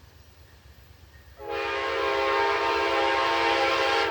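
Amtrak GE Genesis P42DC locomotive's multi-chime air horn, a Nathan K5LA, sounding one long, loud, steady chord that starts about a second and a half in. The engineer is blowing it as a horn show at a road crossing.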